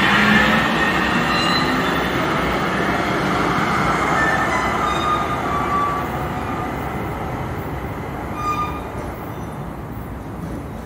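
Link light rail train pulling away along the platform: its electric traction motors whine and its wheels rumble on the rails. The sound is loudest at first and fades steadily as the train recedes.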